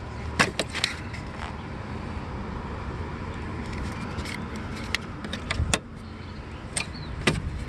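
A few sharp clicks and knocks, three in quick succession about half a second in and a few more near the end, over a steady low background rumble.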